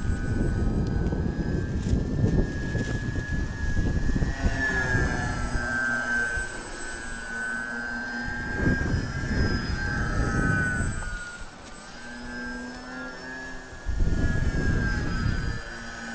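Twin electric motors and propellers of a Twinstar radio-controlled model plane whining steadily in flight, the pitch wavering a little with throttle. Low, rumbling wind noise on the microphone comes and goes several times.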